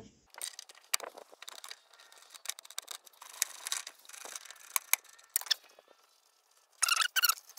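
Steel wrenches clicking, scraping and clinking on the nut of a car's front upper shock absorber mount as it is loosened, in scattered strokes with a quicker run of clicks about seven seconds in.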